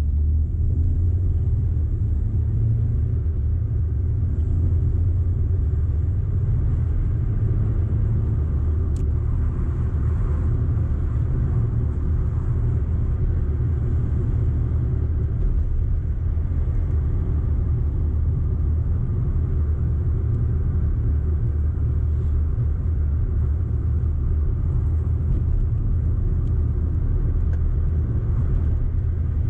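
Audi car being driven at a steady pace: a steady low rumble of engine and road noise.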